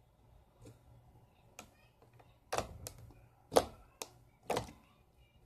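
Slime being squeezed and poked with fingers, with a series of sharp little pops and snaps as air pockets burst, about five of them from halfway through, after a few faint ticks.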